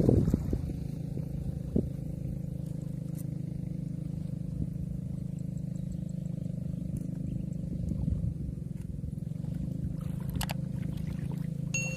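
A small engine running steadily at a constant speed, with a brief knock about two seconds in.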